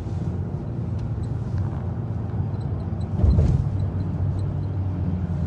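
Steady low rumble of a car's engine and road noise, heard from inside the moving car, with a brief louder swell about three seconds in.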